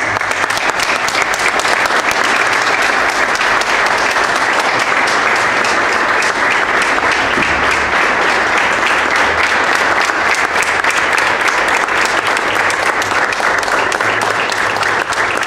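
Audience applauding: dense, steady clapping that breaks out all at once and holds without letting up.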